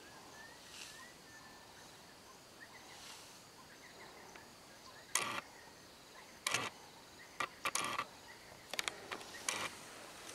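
A string of short, sharp thuds, about eight of them at irregular intervals starting about halfway through: dung boluses dropping from a defecating African elephant and hitting the ground, over a faint steady background hiss.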